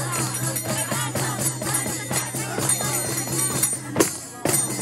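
Lively festive dance music carried by a hand-shaken tambourine jingling throughout, with voices over it. A sharp click and a short drop about four seconds in break the sound.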